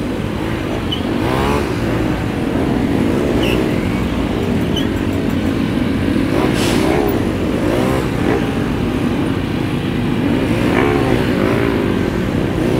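Motorcycle engine running in slow stop-and-go traffic, its pitch rising and falling again and again as the throttle is opened and closed, over the steady rumble of surrounding traffic.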